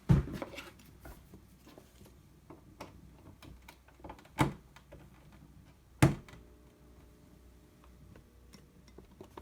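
Handling knocks and clicks as a vintage flip clock is plugged in. A sharp click about six seconds in is followed by the steady hum of the clock's electric motor starting up.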